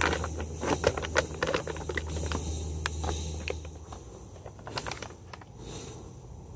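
Aluminium foil being handled and folded, a dense run of crinkling crackles for about three and a half seconds, then a few lighter scattered rustles.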